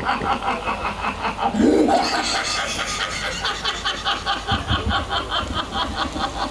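Sustained laughter in rapid, even ha-ha pulses, about five a second.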